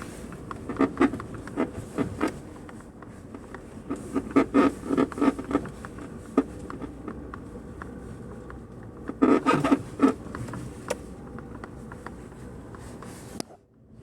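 Kia Rio suspension squeaking: short, repeated creaks coming in runs, about a second in, again around four seconds in and around nine seconds in, over a steady low background noise.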